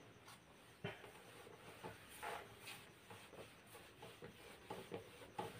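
Faint, irregular rubbing and scratching strokes of a whiteboard being wiped and written on with a marker.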